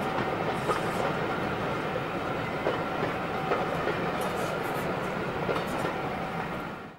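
Passenger coaches rolling past on the rails, a steady rumble with scattered clicks of wheels over rail joints, fading out quickly near the end.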